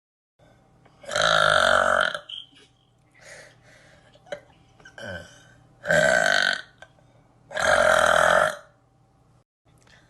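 A woman burping three times, loud and drawn out, each burp about a second long: one a second in, then two more a little over a second apart near the middle and end.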